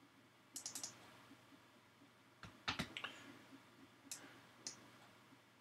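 Faint clicks of a computer mouse used to open a file: a quick flurry of clicks, a louder cluster with a dull knock about two and a half seconds in, then two single clicks.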